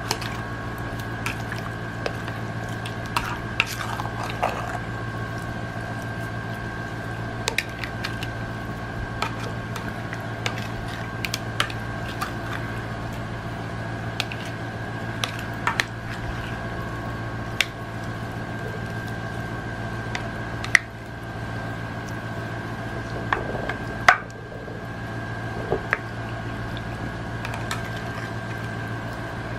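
Wet squishing of pork ribs being tossed in a liquid marinade in a bowl, with scattered short clicks and taps of the mixing, over a steady hum.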